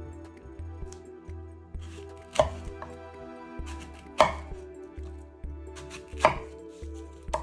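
Knife cutting fruit on a cutting board: three sharp chops about two seconds apart, with lighter taps of the blade between them.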